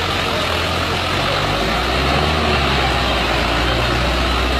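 Tractor's diesel engine running steadily as the tractor wades through deep water; its low note drops about a second and a half in. A steady hiss sits underneath.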